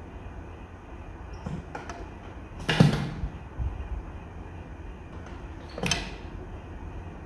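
A few sudden thumps in a glass tank as a bullfrog shifts and lunges on the floor, the loudest about three seconds in and another near six seconds. A low steady hum runs underneath.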